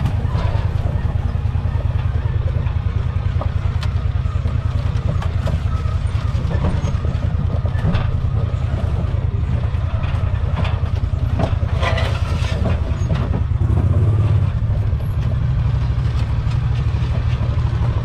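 Motor vehicle engine running steadily with a low pulsing rumble, with scattered knocks and rattles over it.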